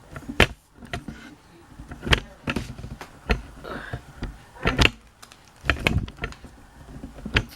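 Handling noise: an irregular string of clicks and knocks, a few of them sharp and loud, as the ceiling fan is handled and turned to find its label.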